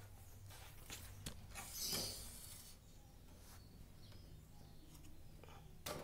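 Faint handling noises from a wooden bird cage: a few light clicks and knocks, then a brief scraping rustle about two seconds in, and another click near the end, over a low steady hum.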